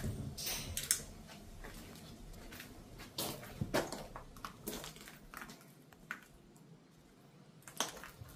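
Footsteps crunching and scraping over rubble and broken plaster, a few irregular steps with a quieter pause in the latter half.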